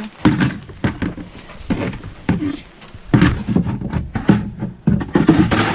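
A bucket being handled and knocked about: a series of irregular knocks, thuds and rustles.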